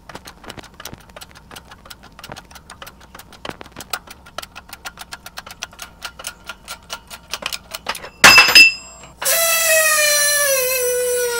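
Hydraulic shop press forcing an old bushing out of a Subaru control arm. Rapid, even ticking at about four a second grows louder under load for about eight seconds. Then a loud bang as the bushing breaks free, followed by a sustained squeal that falls steadily in pitch.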